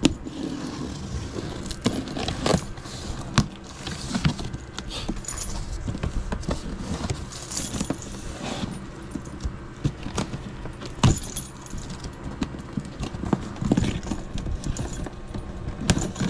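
Keys on a key ring jangling as one key is dragged along the packing tape of a cardboard box to slit it open, with cardboard flaps rustling and knocking. Irregular clicks and scrapes, with a couple of sharper knocks.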